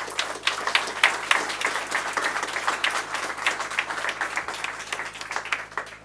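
Audience applauding at the close of a speech. The clapping thins out and dies away near the end.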